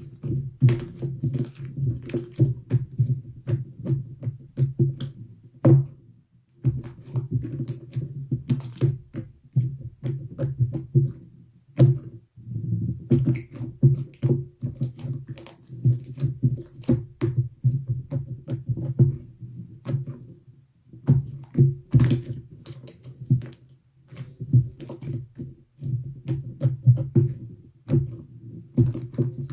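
Slime being squeezed and pressed by hand, making rapid wet pops, clicks and squelches in stretches with brief pauses.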